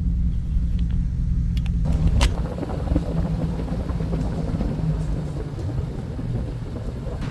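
GMC Sierra pickup driving, with a steady low rumble of engine and tyres. A sharp click about two seconds in, then a rougher, hissier noise joins the rumble.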